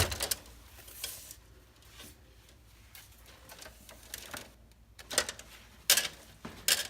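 Handling noise from hand work on wiring and parts: a few sharp clicks and light knocks at the start and about a second in, a quieter stretch, then three sharp clicks near the end.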